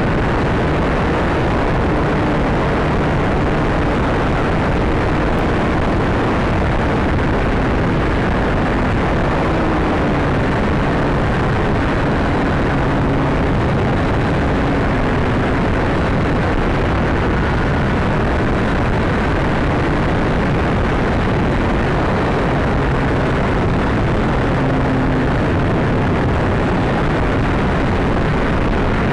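Steady, loud wind rush on a small onboard camera's microphone mounted on the side of a flying scratch-built RC plane, with the propeller's hum underneath shifting in pitch now and then.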